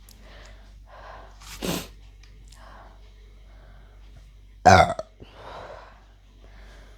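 A woman burping after chugging Pepsi: a shorter burp about a second and a half in and a much louder one near five seconds.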